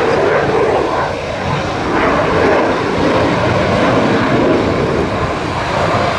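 Eurofighter Typhoon fighter jet in its display flight: loud, steady jet engine noise that grows a little louder about two seconds in.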